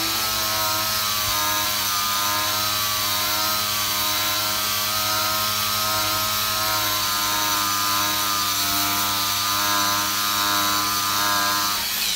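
Makita 18V cordless angle grinder running under load with a fibre cleaning disc scrubbing rust off a steel plate: a steady motor whine over the rasp of the disc on the metal. Near the end the trigger is let go and the motor winds down.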